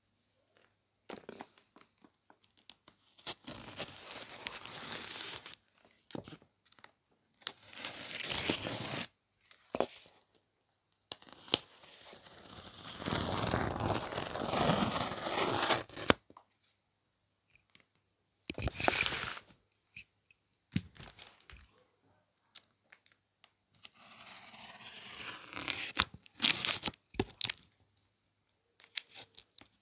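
Packing tape being peeled and torn off a cardboard box in several separate pulls with short pauses between them, the longest lasting several seconds midway.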